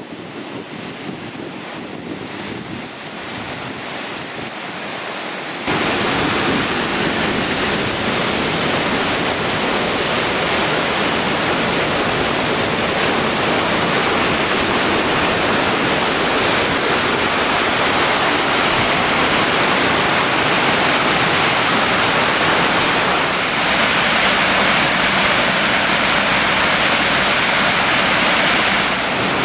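Floodwater pouring through a sluice into the River Nene: a loud, steady rush of churning white water. It starts abruptly about six seconds in, replacing a quieter rush of water and wind.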